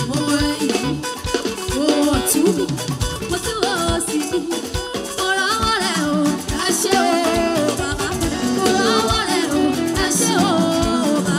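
Live praise singing: young female voices singing a melody into microphones, backed by a band with keyboard and a steady beat.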